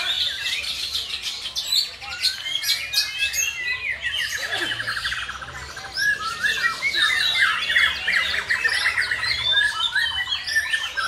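Several black-tailed white-rumped shamas (murai batu) singing at once in a dense, overlapping chorus of whistles and quick notes. Long, fast trills run through the middle.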